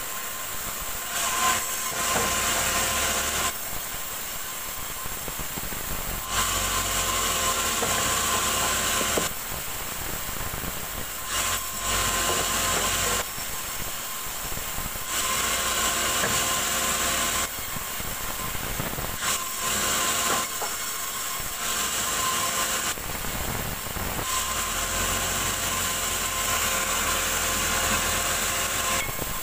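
Vertical band saw at a sawmill ripping a log into slabs in several passes of a few seconds each. The hiss and whine swell as the blade cuts through the wood and drop back between passes, while the saw keeps running.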